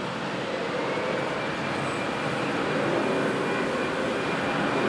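Turbofan engines of an Airbus A319 running as the airliner rolls on the runway. The jet noise carries a faint high whine and grows steadily louder.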